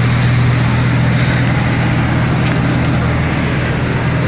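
Lamborghini Gallardo's V10 engine running at low revs as the car creeps along, a steady low drone with no revving.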